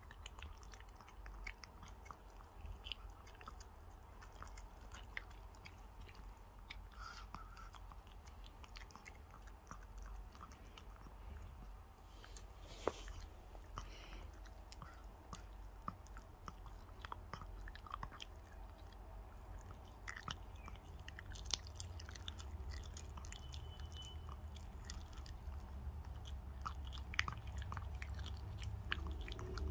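Small white dog chewing and biting a piece of raw chicken held out in a hand: a steady run of short, irregular clicks of teeth on the meat.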